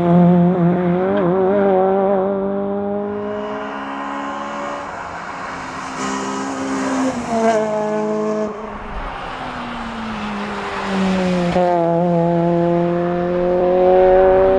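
Honda Integra Type R engine revving hard under acceleration, its pitch climbing. It drops back about five and eight seconds in, at gear changes or lifts, then climbs again from about twelve seconds.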